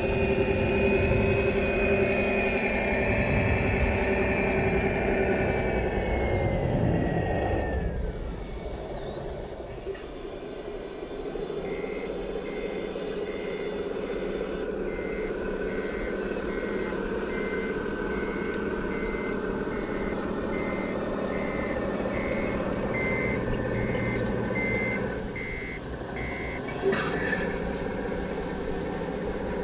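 Sound module of an RC model Scania truck: simulated diesel engine running, dropping away about eight seconds in, then an even reversing beeper, about one and a half beeps a second, while the truck backs its trailer up. A brief sharp sound near the end.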